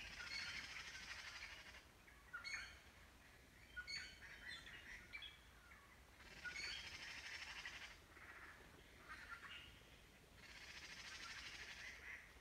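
Faint birdsong: three rapid trills of about a second and a half each, near the start, in the middle and near the end, with short scattered chirps between them.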